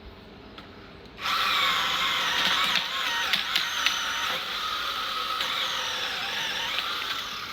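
Cordless 21-volt pole chainsaw starting about a second in and running steadily under load as it cuts through a tree branch, easing off near the end.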